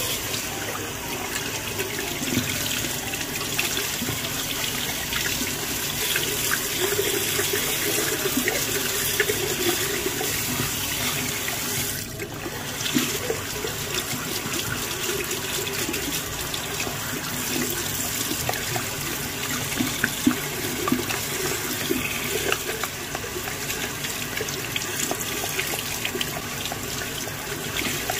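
Tap water running steadily onto the pleated filter of a Dreame V11 cordless vacuum held under the stream, splashing and draining into a sink as the filter is rinsed. The water noise dips briefly about halfway through.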